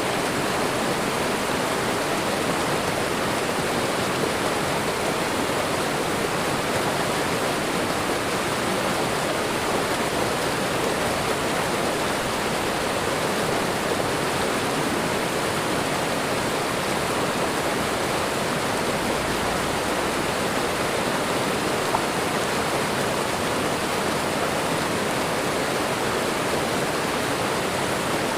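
Waterfall and running water rushing steadily, an even unbroken roar of falling water.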